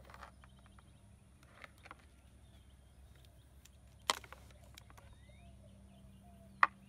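Two sharp plastic clicks, about four seconds in and again near the end, as wiring-harness connectors are handled and fitted together. Faint bird chirps in the background.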